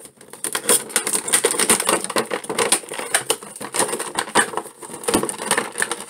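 Cardboard and plastic action-figure packaging being handled and opened by hand: a dense, continuous run of rapid crackles and rustles.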